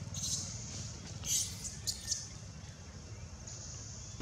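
Short, high-pitched animal squeaks, about four or five of them in the first two seconds, over a low steady hum.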